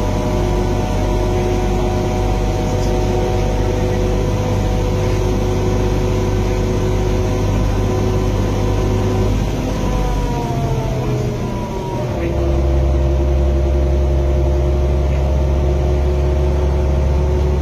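Bus engine and drivetrain running under way: a steady low rumble with a whine on top. About ten seconds in, the pitch falls away over two seconds, like a gear change, then it settles into a steady, heavier rumble.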